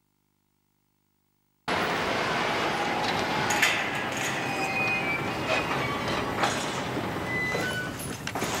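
Silent at first, then, about one and a half seconds in, a four-wheel drive rolling up a dirt road and coming to a stop, its tyres crunching over the gravel with scattered small clicks and a few brief squeaks.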